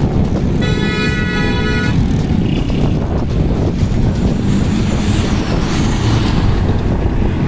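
Toyota Hilux rally pickup driving hard through deep sand. Its engine runs loud and steady under the sand noise, and a rush of spraying sand peaks as it passes close, about five to six seconds in. A horn sounds briefly about half a second in.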